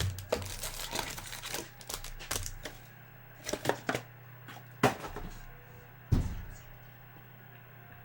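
Trading cards and foil packs being handled on a table: a quick run of light clicks and rustles, then a few separate sharp taps and knocks.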